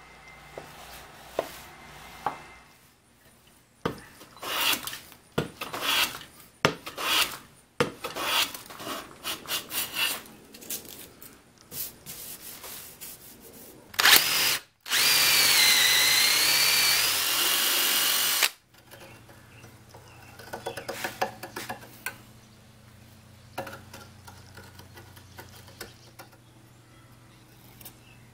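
Electric drill boring into the end grain of a wooden block, running for about four seconds with its motor whine dipping and recovering under load. Before it comes a string of irregular rubbing and scraping strokes of hand work on wood.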